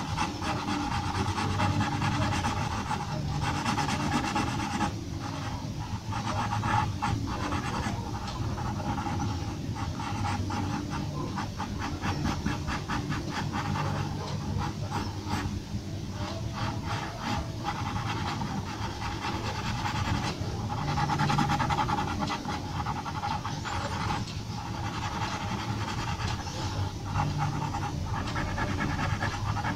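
Graphite pencil scratching on drawing paper in quick, repeated shading strokes.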